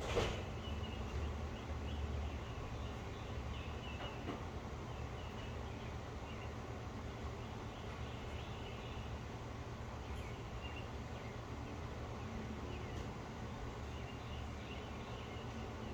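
Faint birds chirping now and then over a steady low rumble. A single sudden knock sounds just after the start.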